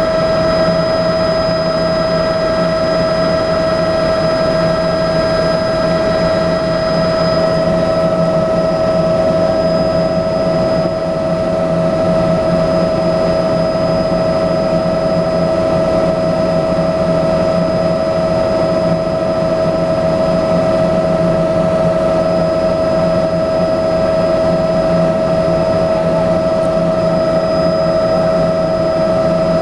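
Cabin noise of a Bell 206B-3 JetRanger III helicopter in level flight: the steady high whine of its Allison 250 turboshaft engine and drivetrain over a low hum and the rush of rotor and airflow noise.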